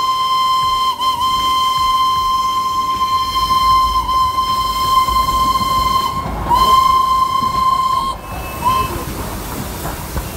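Darjeeling Himalayan Railway steam locomotive's whistle blowing a long, steady single-note blast, then after a short break about six seconds in a second shorter blast and a brief toot, over a steady hiss of steam.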